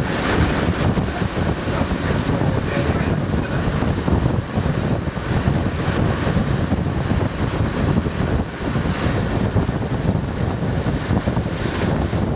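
Wind buffeting a microphone held out of the window of a moving Class 121 diesel railcar, over the steady rumble of the railcar running along the track.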